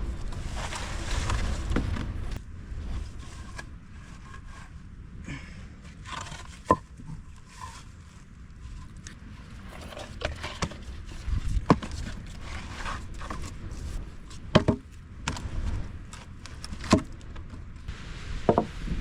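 Scattered sharp knocks and scrapes, about half a dozen clear ones, over a low background rumble. Gusty wind noise is heavier for the first two seconds.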